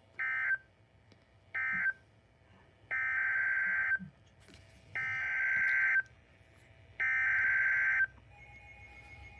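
NOAA Weather Radio SAME digital data bursts, a harsh two-tone buzz. Two short bursts close the previous warning's end-of-message sequence. Three one-second bursts follow about two seconds apart: the coded header of the next warning.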